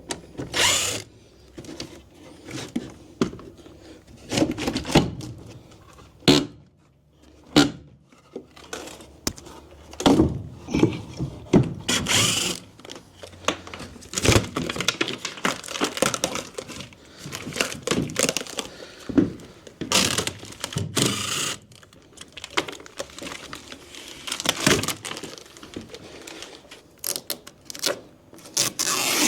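Irregular knocks, thuds and scraping as an old furnace and hot water tank are worked loose and moved out by hand, some sharp single knocks and some longer rasping scrapes.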